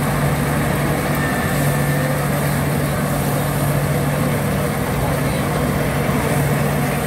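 Warmianka wide-drum threshing machine running on its flat-belt drive while sheaves are fed into it: a steady low hum under dense, even machine noise.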